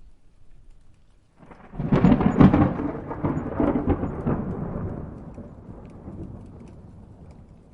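A thunderclap breaks about a second and a half in, crackling sharply for a couple of seconds, then rumbling and slowly rolling away. Rain sounds faintly underneath.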